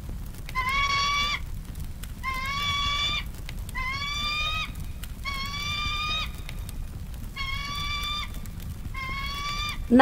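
Eagle-call sound effect: six high-pitched calls, evenly repeated about every second and a half, each a slightly rising held note lasting under a second. A low steady rumble runs underneath.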